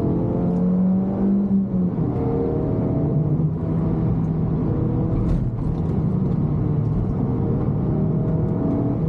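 Suzuki Swift Sport ZC32S's 1.6-litre four-cylinder engine heard from inside the cabin, revving up hard under full throttle. Its pitch drops suddenly at an upshift about two seconds in, and it then pulls at steady high revs. A brief knock comes a little past halfway.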